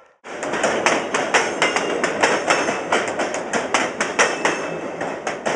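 Railcar wheels clacking over jointed rail close by: a rapid, uneven run of sharp clacks, about five a second, starting abruptly just after a brief silence.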